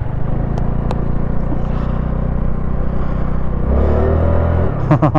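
Honda Navi's small single-cylinder engine running steadily under throttle, a little louder about four seconds in.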